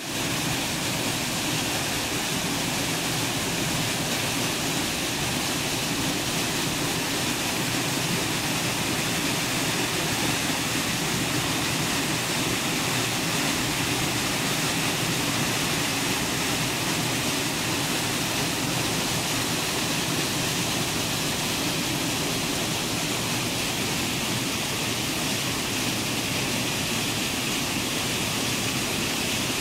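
A small waterfall on the Pemigewasset River pouring into the Basin's granite pothole pool: a steady, even rush of falling water.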